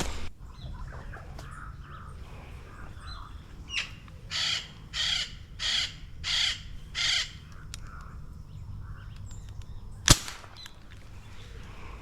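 A bird gives five harsh calls in quick succession, a little under two a second. Near the end comes a single sharp crack: an air rifle shot.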